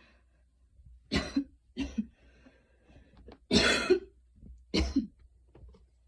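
A woman coughing after a fast run: four short coughs, the third, about three and a half seconds in, the longest and loudest.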